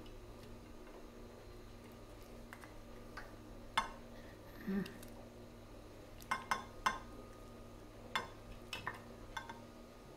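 Metal tongs and a spoon clinking lightly against a stainless steel pot and a ceramic plate while chicken pieces are lifted out of thick sauce: a dozen or so scattered, irregular clinks, a few in quick succession, over a faint steady hum.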